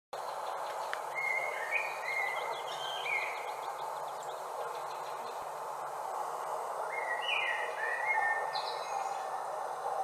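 Songbirds singing in the evening: two spells of short whistled phrases, about a second in and again around seven seconds, over a steady background noise.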